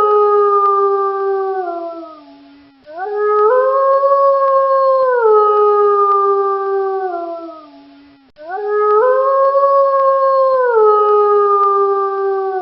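A wolf howling: long drawn-out howls of about five seconds each, one after another with short breaks. Each rises briefly at the start and then slides down in a few steps.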